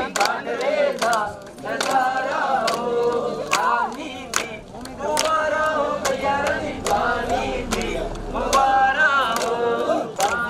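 A group of people singing a Hindu devotional song to the goddess together, with sharp percussive strikes keeping a beat, roughly three every two seconds.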